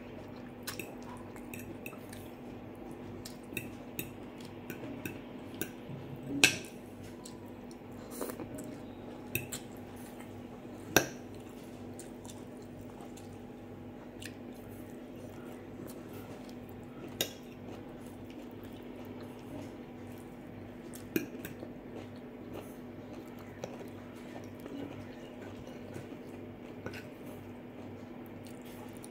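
Metal fork and knife clinking and scraping against a glass plate of rice and curry, with chewing between the clinks. A few sharp clinks stand out, the loudest about six and eleven seconds in, over a steady low hum.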